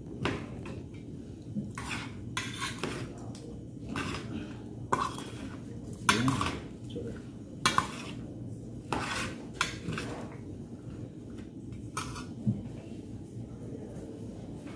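Metal spoons scraping and clinking against a stainless steel pot as food is stirred and tossed, in irregular strokes with a few sharper knocks near the middle.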